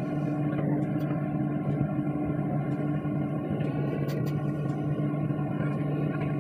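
Excavator's engine and hydraulic pump running steadily, heard from inside the cab as a constant low hum with a higher whine above it. A few faint clicks come through about a second in and again about four seconds in.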